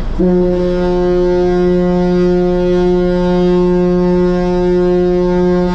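Ferry Ogasawara Maru's ship horn sounding one long, steady blast for over five seconds, a deep tone with many overtones that cuts off near the end: the departure signal as the ship leaves the pier.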